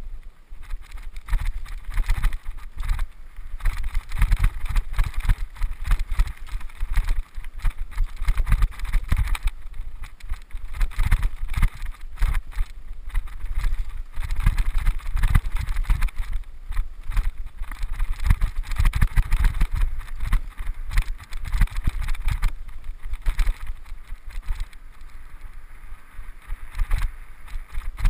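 Mountain bike descending a rough dirt forest trail, heard from a helmet camera: tyres rumbling and the bike knocking over the ground, with wind buffeting the microphone. It gets quieter near the end as the trail turns to grass.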